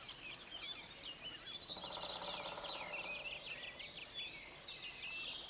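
Recorded forest soundscape: a dense chorus of songbirds, including song thrushes and a chaffinch, over a steady murmur of water and wind, with a brief rapid pulsing sound about two seconds in.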